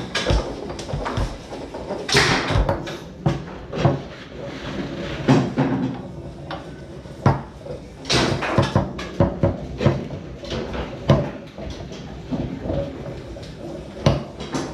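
Foosball being played on a Tornado table: an irregular run of sharp knocks and clacks as the ball is struck by the player figures and rebounds off the table, with a few harder shots about 2, 5, 8 and 11 seconds in.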